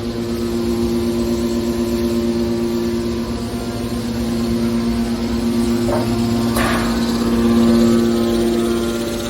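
Hydraulic metal baler running with a steady, even hum from its hydraulic power unit. A brief scraping noise comes a little past halfway.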